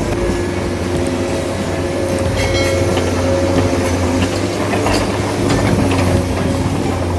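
Steady mechanical hum of running machinery, several held tones that shift in pitch a little about halfway through, with a few light clicks.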